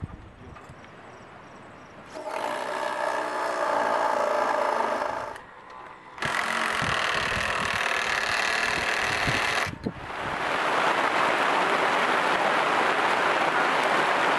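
A cordless drill runs twice, each time for about three seconds, driving into the timber deck planks with a steady motor whine. About ten seconds in comes a steady hiss of heavy rain.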